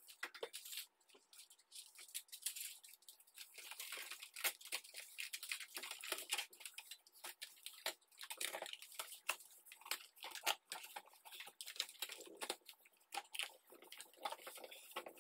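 Aluminium foil tape crinkling and tearing as it is pulled out, pressed down and cut along the edges of a cardboard box, a run of irregular crackles and small taps.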